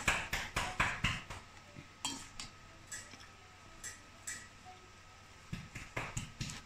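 Metal spoon clinking and scraping against a stainless steel mixing bowl while a shredded cabbage salad is tossed. The sound comes in a quick run of strokes at first, then scattered taps, then another cluster near the end.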